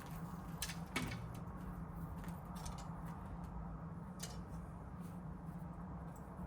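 Faint scattered clicks and rustles of hands handling plants and potting mix, with one sharper knock about a second in, over a steady low hum.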